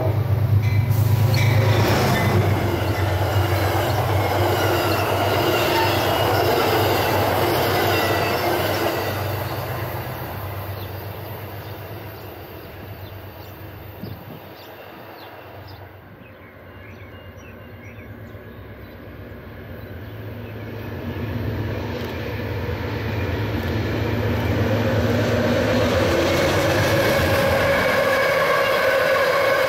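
An Amtrak P32AC-DM diesel passenger locomotive and its train pass close by, with the engine's steady low drone and wheel noise on the rails, fading away over the first half. Then a second Amtrak train led by a P42DC diesel approaches and its coaches run past, getting louder, with a steady high ringing from the wheels.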